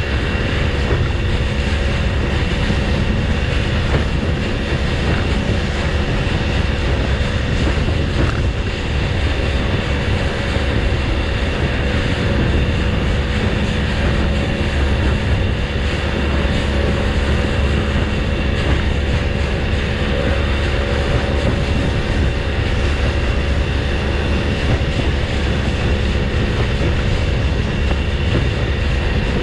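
Small fishing boat running at speed: the steady drone of its engine mixed with the rush of water off the hull and wake, with heavy wind noise on the microphone.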